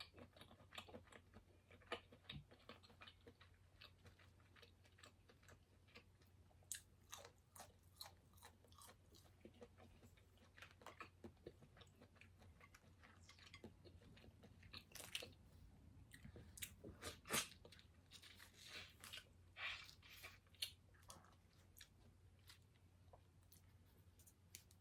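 Faint close-miked chewing of a person eating seafood and noodles: many short wet smacks and soft clicks of the mouth at an uneven pace, busier in the second half.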